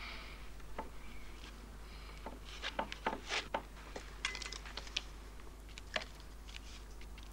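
Palette knife working thick oil paint on canvas: a run of short scrapes and taps, thickest in the middle of the stretch, over a steady low hum.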